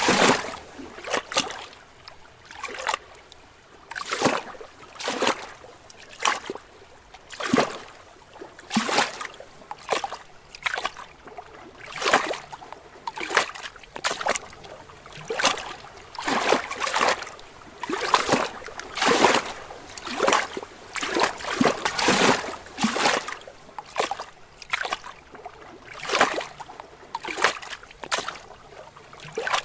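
Small lake waves lapping gently against rocks: an irregular run of soft splashes and slaps, about one or two a second, over a faint wash of water.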